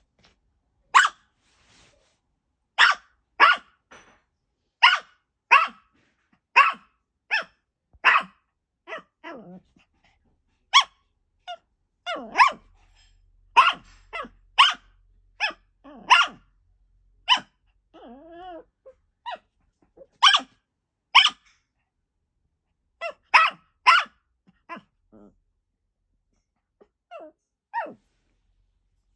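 Maltese barking over and over in short, sharp single barks, in bouts with brief pauses. A drawn-out growling sound comes about two-thirds of the way through. The owner wonders whether the sudden barking is because she is in heat.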